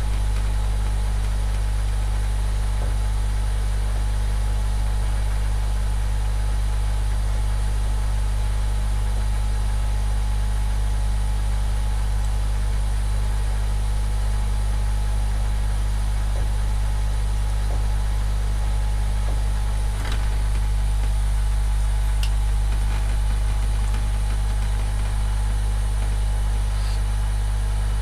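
Hot air rework station blower running steadily at maximum airflow while heating a circuit board to desolder a USB connector.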